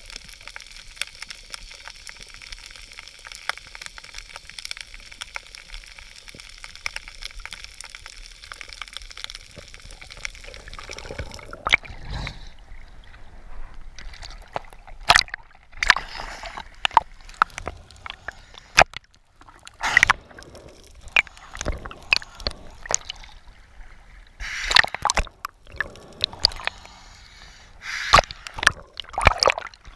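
Sea water heard through a submerged camera housing: a steady muffled hiss with faint crackling clicks. About twelve seconds in the camera breaks the surface and waves slosh and splash against it in irregular sharp slaps and gurgles.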